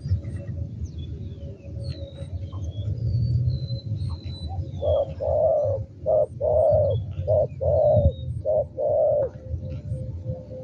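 Spotted dove cooing: four short-then-long coo pairs in a row, starting about halfway through. Faint chirps of small birds are heard before it.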